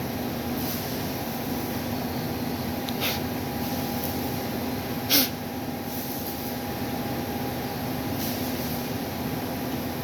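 Steady machinery drone with a constant low hum, broken by two short hissing bursts about three and five seconds in; the second is louder.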